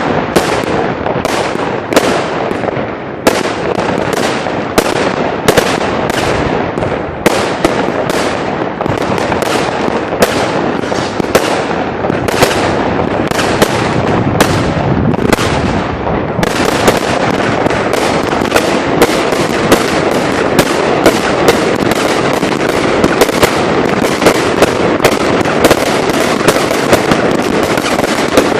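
New Year's Eve fireworks going off nonstop: a steady crackling din with sharp bangs every half second or so, growing denser about halfway through.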